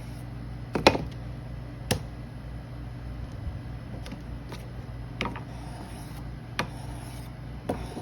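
Scissor blade being sharpened on 400-grit sandpaper glued to a wooden board, drawn slowly in one direction: faint rubbing broken by five sharp knocks as the board and clamped blade meet and part.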